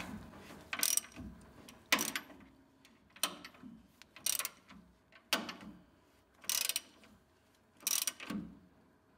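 Torque wrench ratcheting in about seven short strokes, roughly one a second, as the leaf-spring U-bolt nuts are torqued down to spec.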